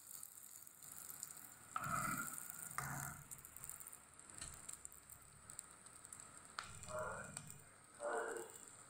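Boiled eggs frying in hot mustard oil in a kadai, a faint steady sizzle, with a few short louder sounds as a steel spoon lifts the eggs out of the pan.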